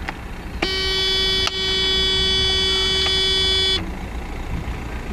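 Car horn of a 1983 Mercedes-Benz W123 200D giving one steady tone for about three seconds, with a short break about a second in, over the low, even idle of its four-cylinder diesel engine.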